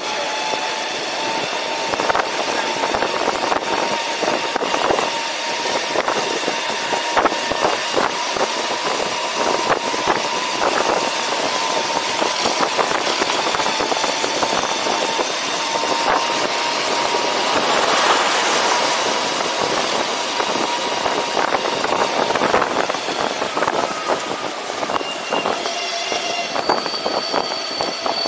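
Whine of a personal electric vehicle's motor while riding. It is one steady tone that slowly rises in pitch, heard over wind and road noise with frequent small rattles and knocks.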